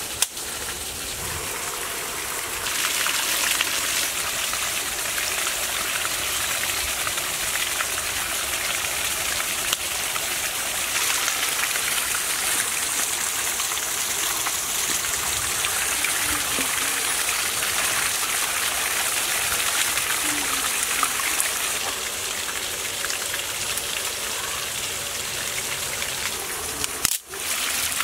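Steady rushing splash of water pouring over a small rock waterfall into a stone basin. It briefly cuts out about a second before the end.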